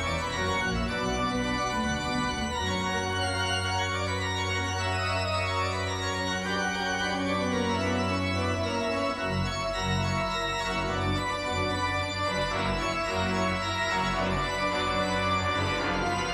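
Pipe organ playing full sustained chords over long-held low pedal notes; one deep bass note holds for several seconds before the bass begins moving about nine seconds in.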